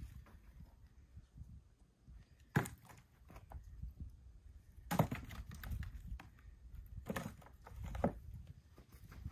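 Split firewood pieces knocking together as they are picked up and set onto a woodpile: four clear wooden knocks a second or two apart, the loudest about halfway through, with lighter clicks between.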